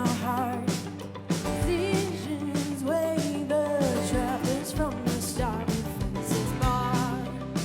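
Band playing live: a lead vocal with wavering held notes over drum kit and a steady low bass line.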